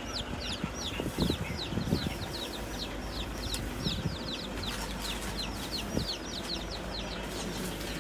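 A group of baby chicks peeping nonstop, many short high chirps overlapping at several a second. A few dull knocks stand out, about a second in and again later.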